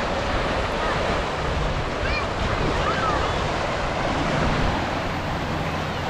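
Small surf washing up on a sandy beach in a steady hiss, with wind rumbling on the microphone and faint, distant voices of people in the water.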